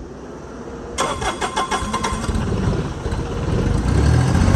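An engine starting: a sudden clattering start about a second in, then it comes up to a steady running drone near the end.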